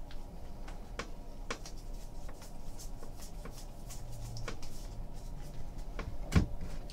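A stack of baseball cards being thumbed through by hand: faint, scattered ticks and slides of card edges against each other, with a sharper tap near the end.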